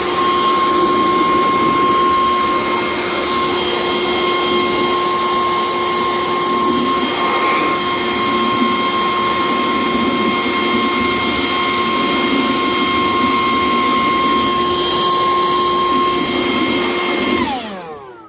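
Leaf blower running at maximum with a steady high whine, blowing the water out of a garden fountain; it is switched off near the end and its whine falls away as it spins down.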